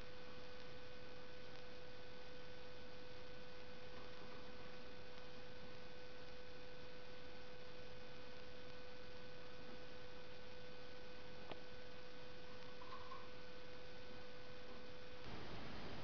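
A steady whine at one pitch over faint hiss, cutting off suddenly near the end, with a single faint click about eleven and a half seconds in.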